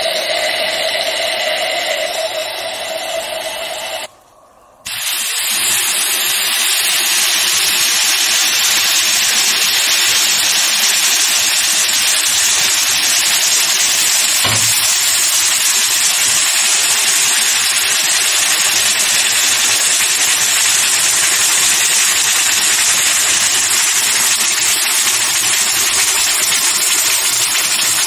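Red-hot metal ball hissing and sizzling steadily as it melts down into a block of ice, the meltwater flashing to steam where it touches the metal. A brief drop-out about four seconds in separates it from a different, banded hiss at the start.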